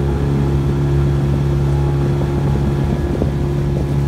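A small fishing boat's motor running steadily while the boat is underway, an even droning hum with wind and water noise beneath it.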